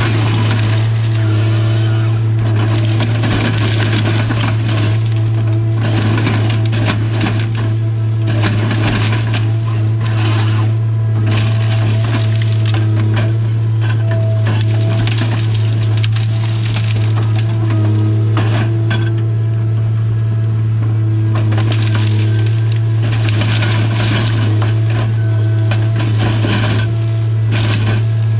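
Tigercat 855C harvester's engine drones steadily, heard from inside the cab, with a higher whine rising and falling above it. Frequent cracking and crunching of wood and branches come from the LogMax 7000 head as it grips and processes hardwood stems.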